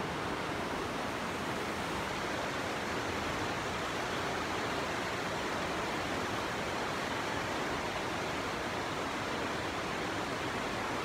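Muddy floodwater rushing in a steady, unbroken torrent.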